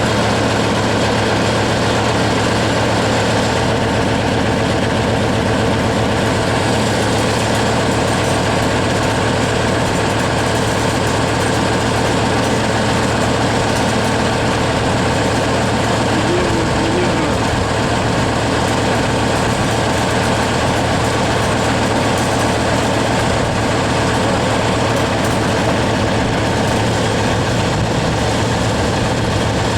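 Heavy engine running steadily at idle, a loud, even, low drone that does not change.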